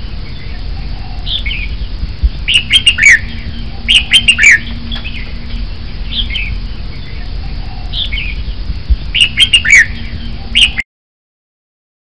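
Red-whiskered bulbul singing: short clusters of quick, falling whistled notes every second or two, over a steady low background rumble. The song cuts off abruptly near the end.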